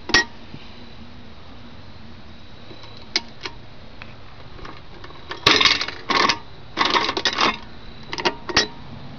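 1950s Victor Topper Deluxe penny gumball machine being worked: its metal crank mechanism clicks and rattles, with a couple of faint clicks and then several rattling bursts in the second half as gumballs drop through into the chute.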